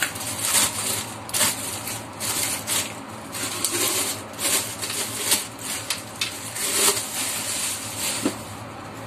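Thin clear plastic bag crinkling and rustling in irregular crackles as it is handled and pulled off a plastic blender jar.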